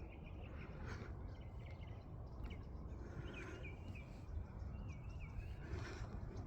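Outdoor ambience: a steady low rumble with a bird chirping a quick series of short, repeated notes in the second half.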